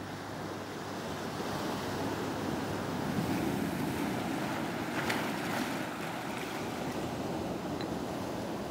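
Ocean surf breaking and washing over shoreline rocks, swelling to its loudest a few seconds in.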